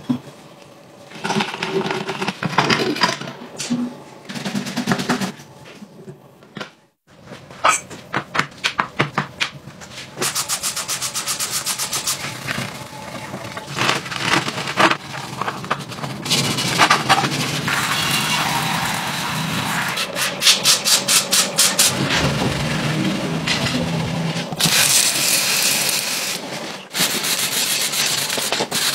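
Hand work on a small pocket-bike engine part: metal clicks and rubbing as the clutch cover is handled, then a stiff brush scrubbing the soapy cover in quick, rapid strokes. Near the end comes a bright steady hiss lasting a couple of seconds.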